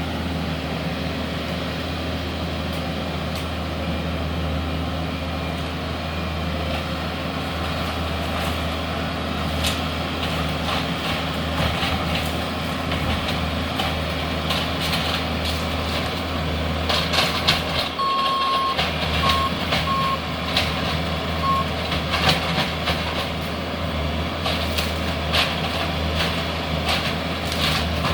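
Heavy demolition machine's engine running steadily while debris clatters and knocks, the knocks growing busier in the second half. Its backup alarm beeps several times from about two-thirds of the way in, and again at the end, as the machine reverses.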